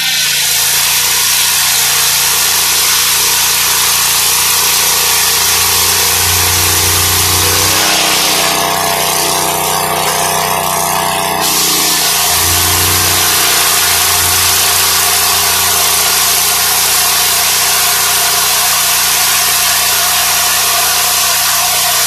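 Engine-driven circular-blade swing sawmill, a homemade copy of a Lucas Mill, running with its blade cutting lengthwise through a log: the engine's steady drone under the loud hiss of the blade in wood. The cutting hiss thins for about three seconds near the middle, then comes back at full strength.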